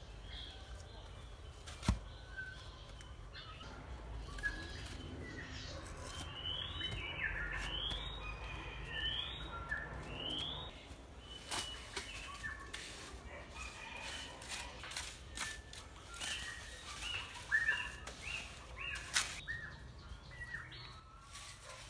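Birds chirping over and over, with short rising calls repeated in a quick series for a few seconds. A few sharp knocks of concrete bricks being handled and set down cut in, the loudest about two seconds in.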